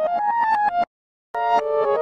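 Logo jingle played on a bright synthesizer or electric-piano sound: a quick rising run of notes that cuts off abruptly a little under a second in, then starts over after about half a second of silence.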